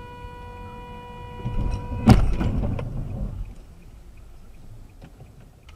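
A car horn blares steadily for about two seconds, then a loud crash of a vehicle collision cuts it off, followed by a short rumble and low road noise from the dashcam car.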